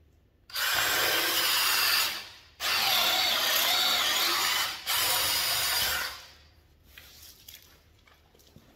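Cordless drill in a drill guide boring a hole into a pine beam with a 3/4-inch threaded-tip Diablo bit. It runs in three bursts of about two, two and one and a half seconds with short pauses between, followed by light knocks and clicks.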